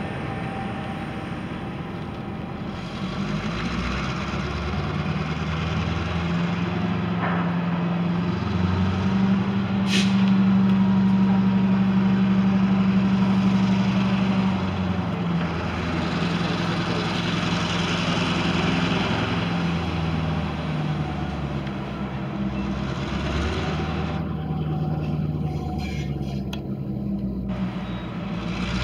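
Diesel locomotive engine running, its low pitch shifting up and down and loudest about halfway through, with one sharp click about ten seconds in.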